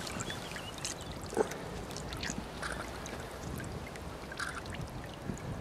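Shallow lake water splashing and trickling around a wading angler and the large mirror carp he holds at the surface, with one sharp knock about a second and a half in.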